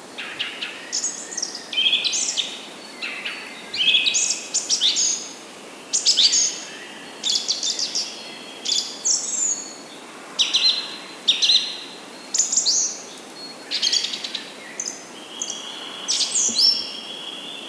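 Several songbirds singing and calling: short high chirps and quick phrases follow one another almost without pause, some overlapping, over a faint steady hiss.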